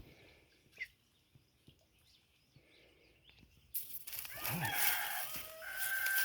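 A rooster crows with a long held call in the second half, over a rushing noise that starts suddenly halfway through. Before that it is quiet, with a few faint chirps.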